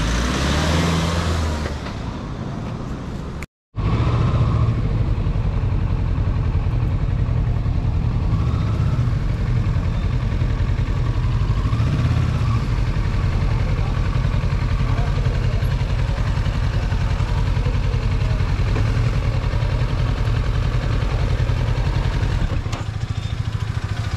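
Motorcycle engine, a Kawasaki Versys 650 parallel twin, running steadily and heard close to the bike. A short break into silence about three and a half seconds in.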